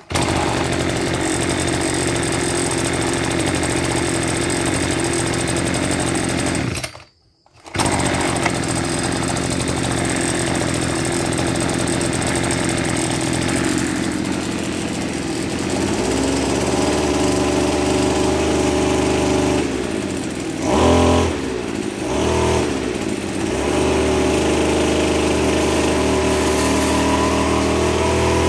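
Kubota DBC265 brush cutter's 26 cc two-stroke engine running just after a pull start, cutting out briefly about seven seconds in. Past the middle it settles to a steadier, lower note and is revved up and down a couple of times, with the cutting blade spinning.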